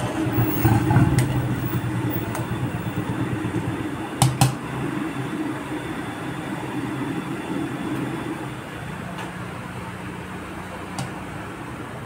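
Large aluminium cooking pot of gravy on a stove with a steady low rumble, loudest while the ladle stirs in the first two seconds and easing later. The metal ladle knocks twice on the pot about four seconds in.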